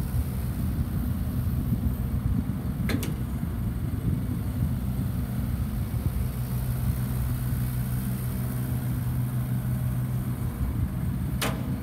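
Hitachi Zaxis 50 mini excavator's diesel engine running steadily while the machine slews round and works its boom and arm. Two brief sharp clicks, about three seconds in and near the end.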